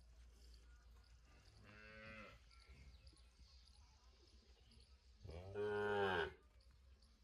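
A cow mooing twice: a fainter call about two seconds in, then a louder, longer moo of about a second near the end.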